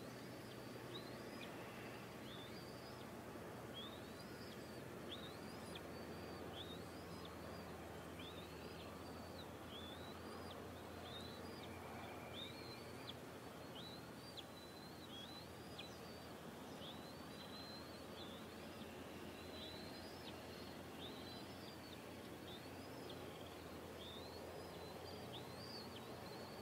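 Short, high bird chirps, each a quick up-and-down note, repeated about once a second over a steady background hiss and low hum.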